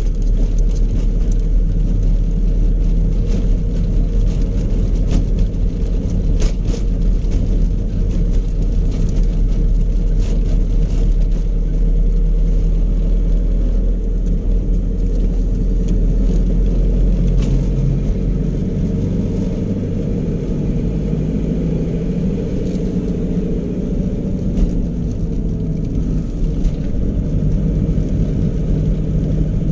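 Road and engine noise heard inside a moving vehicle's cabin: a steady low rumble with scattered light knocks, easing a little about two-thirds of the way through.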